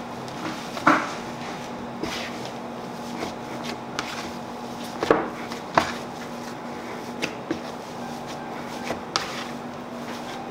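Hands kneading meat-pie pastry dough on a bamboo cutting board: irregular soft thumps and knocks as the dough is pressed and the board shifts, the loudest about a second in and twice around five to six seconds in. A steady low hum runs underneath.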